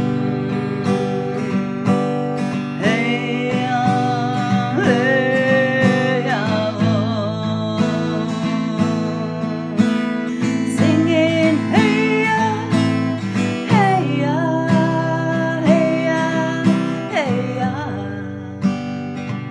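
Acoustic guitar strumming steadily, with a singing voice holding long, wavering melody notes over it at intervals.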